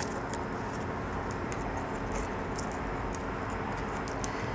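A steady low hum with faint, scattered clicks of small parts being handled by hand.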